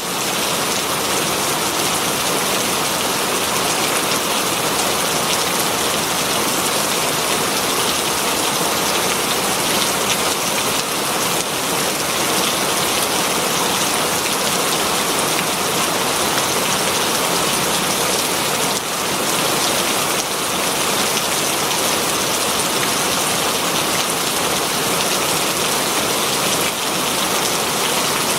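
Very heavy rain falling on leaves, a steady dense hiss of many drops without let-up.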